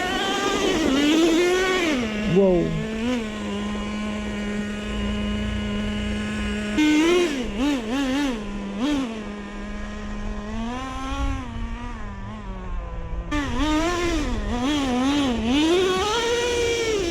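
Small two-stroke nitro glow engine of a Traxxas T-Maxx RC truck being blipped hard, its high buzzing pitch swinging up and down in quick bursts, dropping back twice to a steady idle between bursts.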